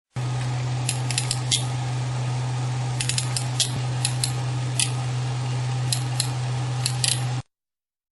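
Small metal parts clicking and clinking irregularly as a tool is handled and taken apart, over a steady low electrical hum.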